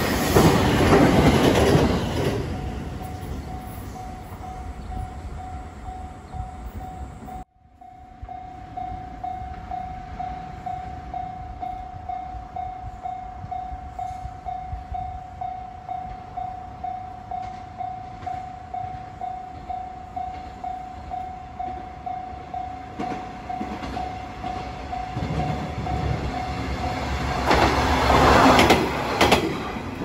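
A JR 521 series electric train passes close by at the start, its rumble fading over the first few seconds. After a sudden break, a level crossing warning bell rings on in an even rhythm. Near the end a KiHa 120 diesel railcar approaches and passes, louder than the bell.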